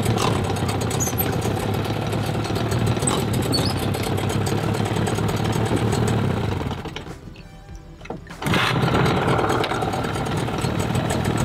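Mercury 25 hp two-stroke tiller outboard running with a freshly rebuilt carburetor. It stops about seven seconds in, then about a second and a half later it is pull-started again and catches at once, running steadily: an easy start.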